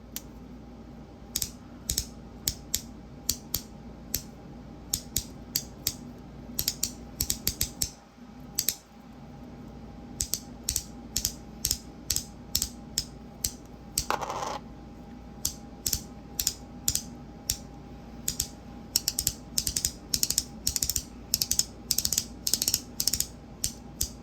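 A handheld magnetic fidget toy being snapped back and forth, making repeated sharp clicks, sometimes single and sometimes in quick runs of three or four. There is a brief scrape about fourteen seconds in.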